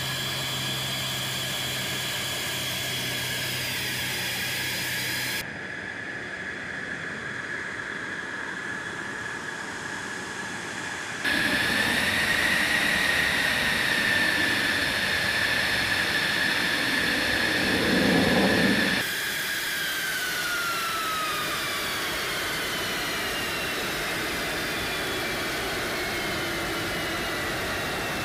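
F-16 fighter jet's engine running on the ground: a steady high whine over a rushing hiss, in several clips that cut in and out abruptly. It is loudest from about eleven to nineteen seconds in, and soon after that the whine falls in pitch.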